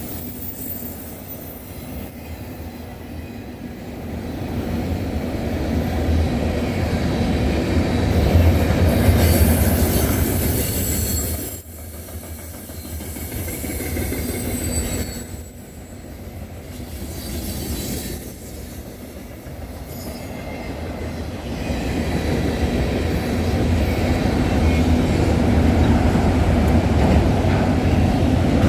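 Freight train's manifest cars rolling past close by: a steady rumble of wheels on rail with a faint high wheel squeal. The sound dips briefly twice around the middle and swells again toward the end.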